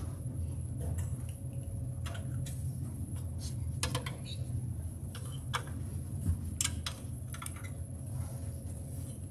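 Scattered light clicks and clinks of metal communion plates being handled and passed, several sharper ones about four seconds in and again near seven seconds, over a steady low hum.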